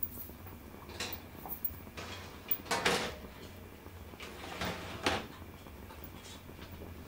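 A few short, faint scrapes and knocks, the loudest about three seconds in, as a large round of rolled yufka dough is slid onto a floured, upturned baking tray inside the oven, over a low steady hum.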